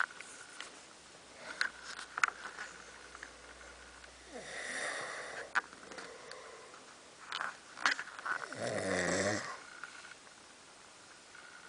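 Someone asleep snoring: two snoring breaths about four seconds apart, the second louder.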